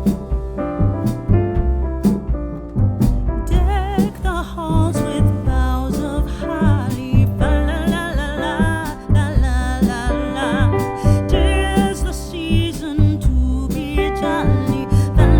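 Background music with a steady low beat: piano and bass at first, then a singing voice with vibrato comes in about three and a half seconds in.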